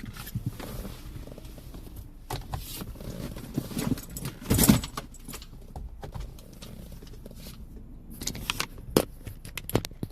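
Scattered clicks, knocks and light rattling, like small objects being handled, with one louder scuffing burst about four and a half seconds in.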